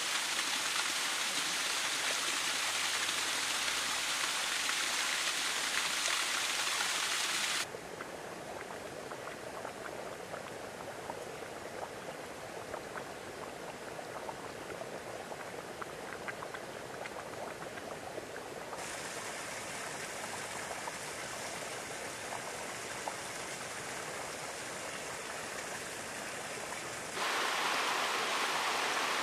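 Hot-spring water running and splashing over rocks in small cascades. The rush is loud at first, drops suddenly to a quieter flow about a quarter of the way in, and jumps back to the louder rush near the end.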